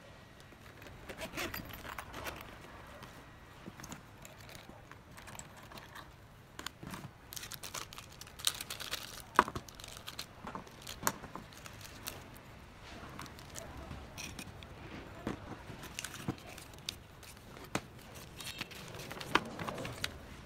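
Unpacking handling noise: small plastic bags crinkling, paper leaflets rustling and small plastic drone parts clicking as they are set down on a cardboard box. The clicks come at irregular intervals, with one sharp click about nine seconds in.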